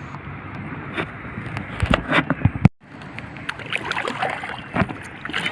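Water sloshing and splashing around a small paddled boat, with scattered knocks, several louder ones about two seconds in. The sound drops out abruptly for a moment partway through.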